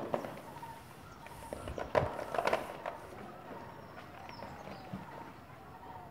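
Outdoor building-site sound: a cluster of sharp knocks and taps about two seconds in, with a few more at the start, over a steady background of birds calling.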